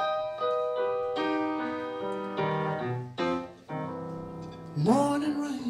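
Slow blues played live on a keyboard with a piano sound: a string of chords and single notes. Near the end a note slides up and is held.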